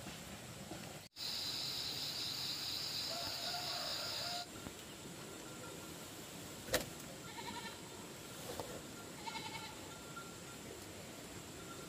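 Two short, high-pitched animal calls about two seconds apart, each a fraction of a second long. Before them there is a steady high buzz lasting about three seconds and then a single sharp click.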